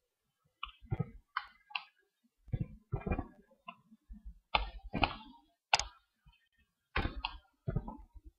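Computer mouse buttons and keyboard keys clicking: about a dozen short, sharp clicks at an irregular pace, some in quick pairs.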